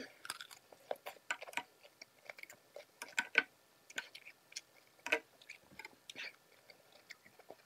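Close-up chewing of a bite of raw cucumber: irregular crisp crunches and wet mouth clicks, with a few louder crunches in the middle.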